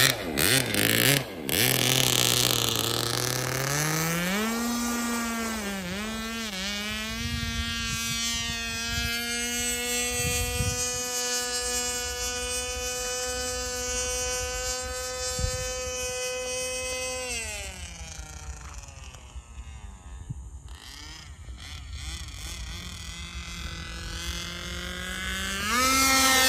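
OS .46 two-stroke glow engine with a tuned pipe on an RC Scanner model plane, opening up from a low idle to a steady high-pitched whine about three to four seconds in. About 17 seconds in the pitch drops and the sound fades as the plane flies off, then it swells loud again near the end as the plane comes by low.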